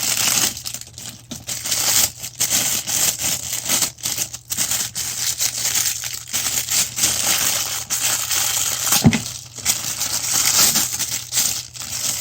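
Crinkling and rustling handling noise, like plastic being crumpled and rubbed, as a replacement freezer thermostat is worked into place. A steady low hum runs underneath, and there is one sharper knock about nine seconds in.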